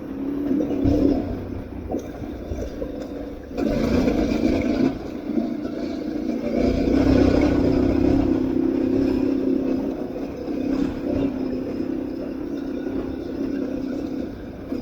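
Aprilia Tuareg 660's parallel-twin engine running under way, its note holding steady and shifting slightly with the throttle, under riding noise. A burst of louder rushing noise comes about four seconds in.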